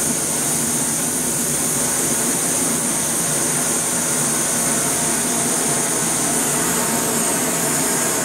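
BRS-3000T titanium canister stove burning at full flame with a steady, loud hiss.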